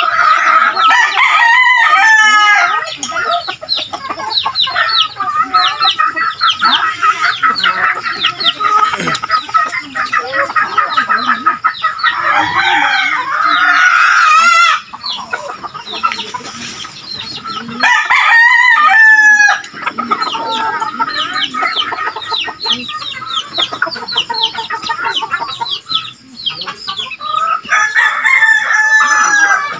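Backyard chickens clucking continuously, with roosters crowing several times over it, clearly about two seconds in and again around eighteen seconds in.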